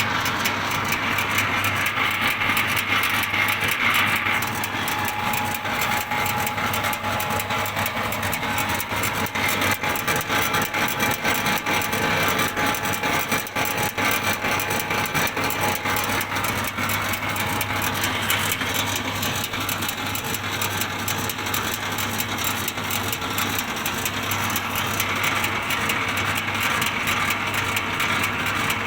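Wood pellet mill running steadily under a trial: a continuous loud machine noise with a steady low hum and a steady higher whine.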